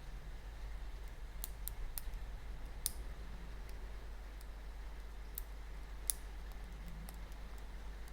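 Lock pick ticking against the pins inside a 6-pin pin-tumbler lock cylinder while it is picked: scattered small, sharp metal clicks at irregular intervals.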